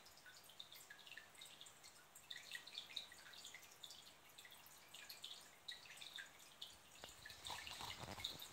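Faint trickling and dripping of aquarium water, a steady scatter of small irregular droplet ticks. Near the end, a low rumble of the camera being handled.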